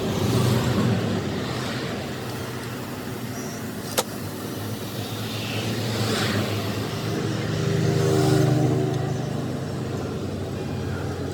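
A motor vehicle engine running, its pitch rising and falling as it revs, with a sharp click about four seconds in.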